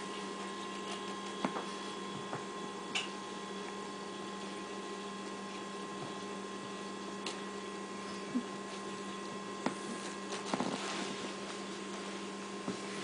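Steady electrical hum of room tone, with a few faint clicks and a short rustle about ten and a half seconds in, in keeping with a small dog tugging at a paper tissue.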